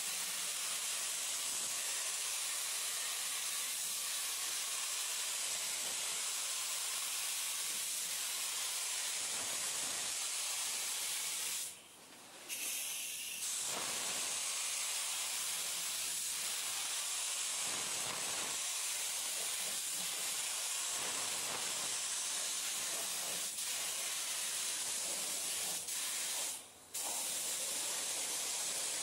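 Compressed-air gravity-feed paint spray gun hissing steadily as it sprays paint onto a car body. The hiss cuts out briefly twice, about twelve seconds in and again near the end, as the trigger is let go.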